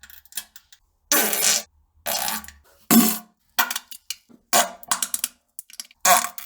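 A run of fart sounds: about six separate blasts with short silences between them, the loudest about three seconds in.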